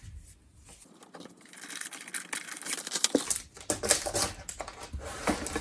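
Paper and card being handled: a run of rustling and small taps, with a few sharper knocks.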